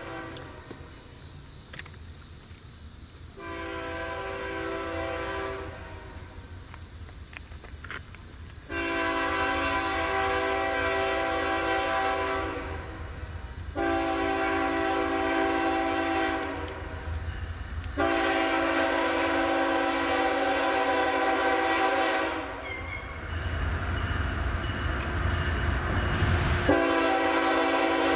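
Diesel locomotive's air horn blowing a series of long blasts, each several seconds, as the train approaches. Between the last two blasts the low rumble of the locomotive grows louder.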